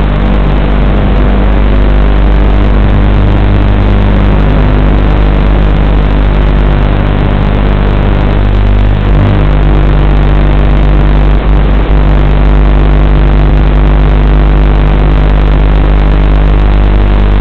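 Loud, steady electronic buzz and hiss from the audio channel of an analog FPV video link recorded in the goggles, unchanging throughout, with two brief dips in the middle.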